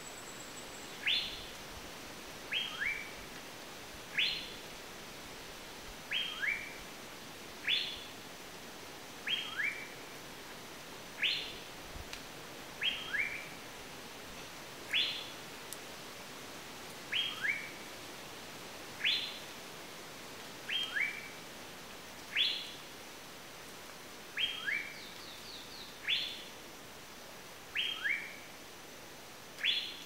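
A bird calling a regular, unhurried phrase: one sharply rising whistled note, then a quick pair of shorter rising notes, repeated about every two seconds.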